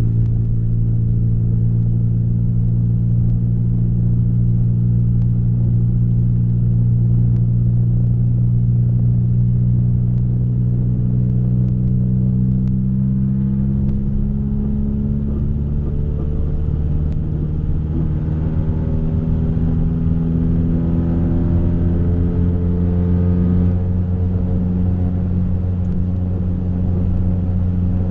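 A 1990 Honda Civic's D16 four-cylinder, heard inside the cabin through a catless 2¼-inch straight-pipe exhaust, gives a loud, raspy drone. It holds steady at light throttle, then rises in pitch under gentle acceleration. About halfway the pitch drops back, as at a gear change, then climbs again.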